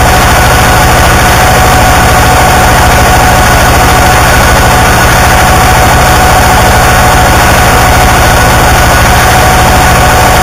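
Harsh noise music: a loud, unchanging wall of distorted noise with a rapid low pulsing underneath and a few steady high tones running through it.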